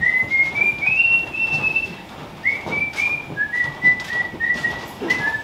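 A person whistling a tune, one clear note after another, the melody climbing at first and then settling lower, with a few light knocks.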